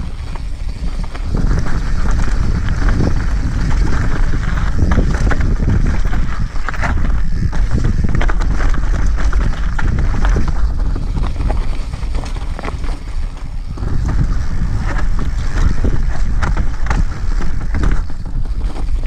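Wind buffeting an action camera's microphone while moving fast down a rocky trail, a loud low rumble with many short knocks and rattles from the rough ground. It eases a little around the middle, then picks up again.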